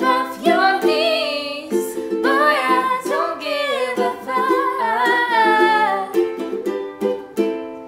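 Ukulele strummed in chords with women singing a melodic line over it. The singing stops about six seconds in, and a few last strums carry on, fading near the end.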